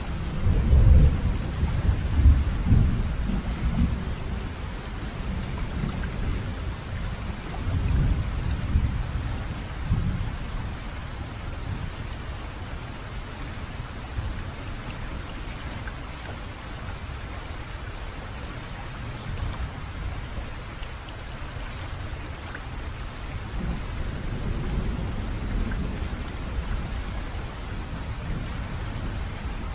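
Steady heavy rain with low rolls of thunder: one a second or two in, the loudest; another around eight to ten seconds; a softer one near the end.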